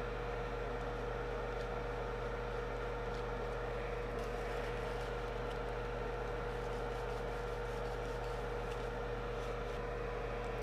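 Steady electrical hum and hiss from bench equipment: a low mains hum with a constant mid-pitched tone above it, and a few faint small clicks.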